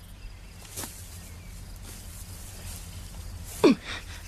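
Quiet outdoor ambience with faint rustling in tall grass, then one short loud sound about three and a half seconds in, with a falling pitch, as a dead rabbit is tossed.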